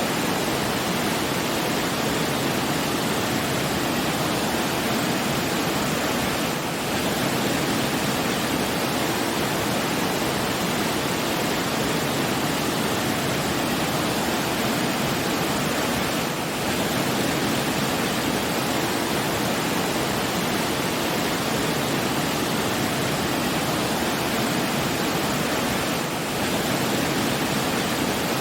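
Steady, even rushing of water, dipping briefly about every ten seconds.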